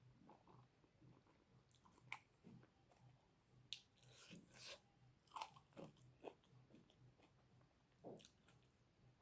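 Faint chewing and mouth sounds of a person eating, with irregular soft smacks and small crunches, a few of them sharper.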